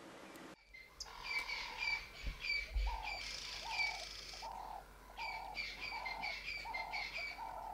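Wildlife calls in a nature soundscape, starting about a second in: a short low call repeated about twice a second, with quick high chirps in groups above it.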